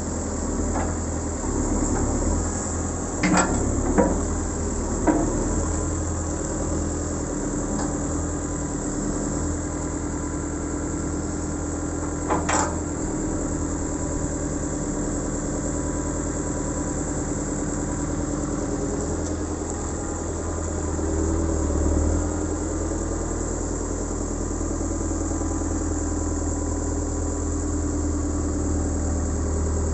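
Terex 970 Elite backhoe loader's diesel engine running steadily, with a few sharp metallic clanks in the first several seconds and another about twelve seconds in.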